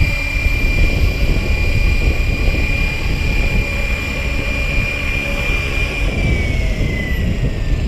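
Gaui X5 electric RC helicopter hovering low and setting down, its steady high motor and rotor whine sliding down in pitch near the end as the rotor spools down after landing. Wind buffets the microphone with a heavy rumble.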